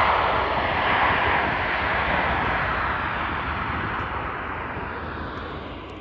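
Jet engines of an Airbus A321 airliner climbing out at take-off thrust, a loud steady roar that gradually fades as the plane moves away.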